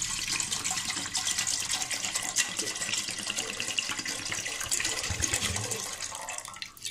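A litre of water poured into a metal cooking pot: a steady splashing pour that tails off and stops just before the end.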